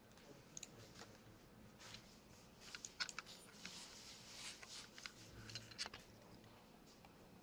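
Near silence: room tone with scattered faint clicks and short rustles.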